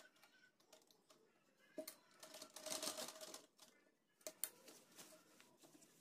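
Faint sewing machine stitching a kurta's button placket: a short run of stitching about two seconds in, with a sharp click before it and another just after.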